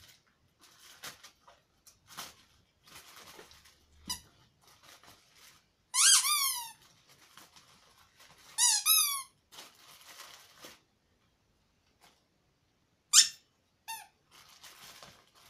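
A plastic mailer bag rustling as it is opened and handled. About six and nine seconds in come two loud bursts of rapid squeaks, each falling in pitch, and two short squeaks follow near the end: squeaky rubber bath toys being squeezed.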